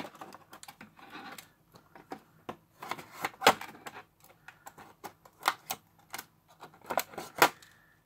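Stiff clear plastic blister packaging crackling and snapping as a box-cutter blade slices through it and hands flex it apart: irregular sharp clicks, the loudest about three and a half seconds in and again near the end.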